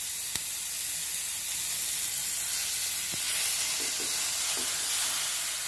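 Sliced onions and green capsicum strips sizzling in hot oil in an aluminium kadai, being sautéed until soft: a steady hiss. One light tap about half a second in.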